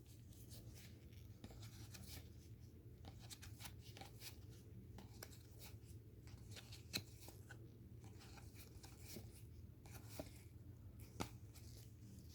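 Faint rustling and light clicking of trading cards being slid and handled one after another, with a few slightly sharper taps, over a low steady room hum.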